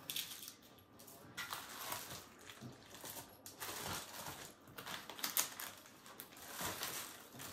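Packaging rustling and crinkling in hands in irregular bursts as a small package is handled and opened.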